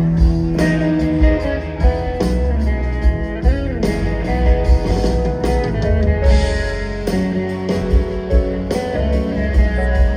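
Live rock band playing: electric guitars, bass, drums and keyboards, with a steady beat.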